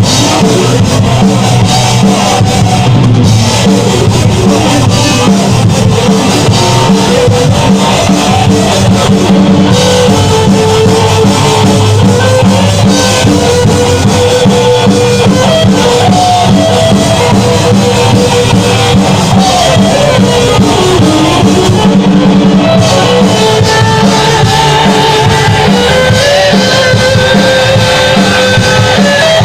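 Live rock band playing loud and continuously, with drum kit and electric guitar.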